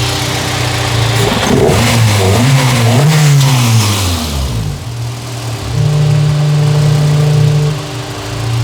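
Honda Civic engine idling, revved once, its pitch rising and falling back over about three seconds. After it settles, a steady foghorn-like wail is held for about two seconds before idle returns; the owner suspects the PCV valve.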